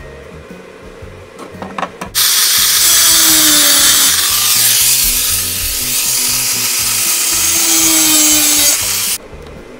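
A 4-1/2-inch angle grinder grinding steel for about seven seconds, starting about two seconds in and cutting off suddenly near the end, after a few light clicks.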